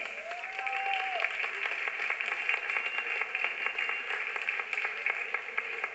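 Audience applauding, dense irregular clapping, with a voice cheering near the start.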